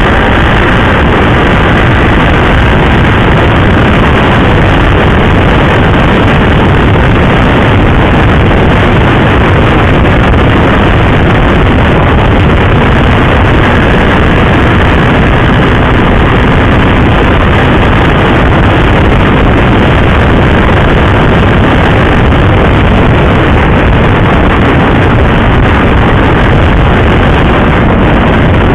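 Steady, loud wind noise rushing over the microphone on a KTM RC 390 sport motorcycle riding at speed, with its single-cylinder engine running underneath.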